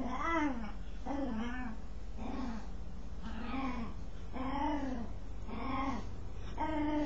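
A dog's strange, repeated vocal noise while it scratches itself: about seven short calls, one roughly every second, each rising and falling in pitch.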